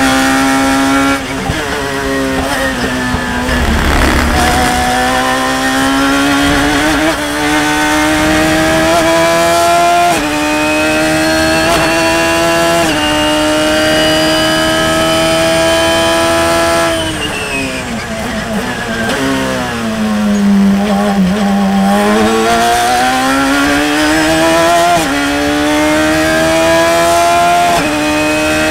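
Radical SR3 RSX's 1340 cc motorcycle-derived four-cylinder engine at race pace, heard from onboard. It pulls hard with the revs climbing in steps through several upshifts. About 17 seconds in it lifts and the revs fall away under braking, then it accelerates again from low revs.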